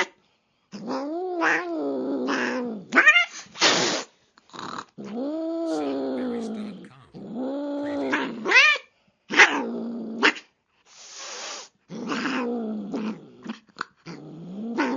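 Angry domestic cat growling and yowling in a run of drawn-out calls that rise and fall in pitch, with a sharp hiss about four seconds in and another about eleven seconds in.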